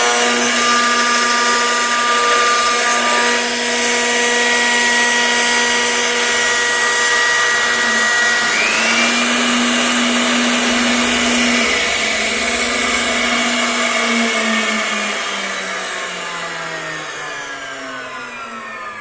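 CNC router spindle running with a steady high whine over cutting noise, its pitch briefly shifting about halfway through; in the last few seconds the whine slides steadily down in pitch and fades as the spindle spins down.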